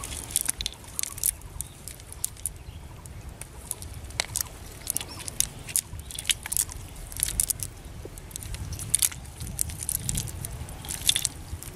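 Irregular crackles, clicks and squelches as hands pick through a wet cast net on mud strewn with small shells and twigs.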